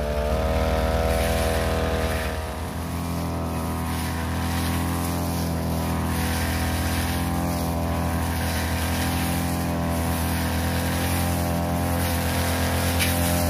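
Backpack brush cutter's small engine running at high speed while cutting tall cogon grass. The engine note rises just after the start, dips briefly, then holds steady.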